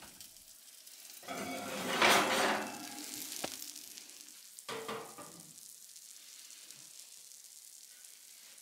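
Chicken pot pie sizzling faintly in a hot cast iron skillet just out of the oven, with a louder scraping clatter lasting about a second and a half as the skillet is taken off the oven rack, and a shorter clatter about five seconds in.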